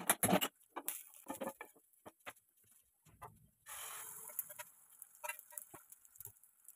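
Clicks and knocks of a knife and steel bowl against a flat pan, loudest just after the start, with a short sizzle about four seconds in as beaten egg is poured onto the hot pan.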